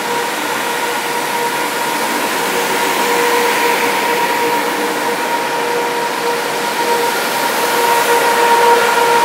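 Ceiling-mounted tunnel jet ventilation fans running, a steady whirring rush with a constant hum-like tone in it, heard from inside a car in slow traffic. It grows slightly louder toward the end.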